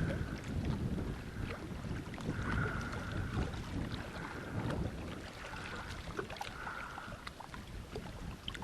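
Strong gusty wind buffeting the microphone, a steady low rumble, with a fainter higher hiss that comes and goes every second or two.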